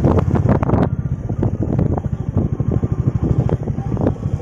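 Royal Enfield Classic 350's single-cylinder engine running steadily as the bike rides a rough dirt track, with scattered knocks and rattles over the bumps.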